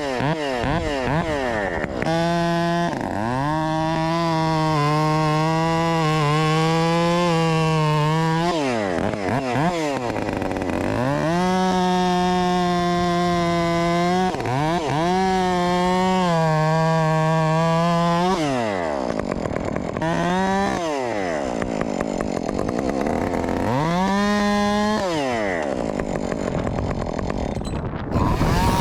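Two-stroke Husqvarna chainsaw revved up to full throttle and held there for several seconds at a time, five times, dropping back to idle in between, as it cuts through wood.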